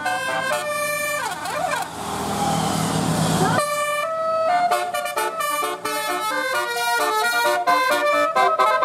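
Telolet multi-tone bus air horns playing quick stepped melodies over a running bus engine. About two seconds in there are sliding siren-like tones and a rushing hiss. After an abrupt cut, another rapid horn tune plays.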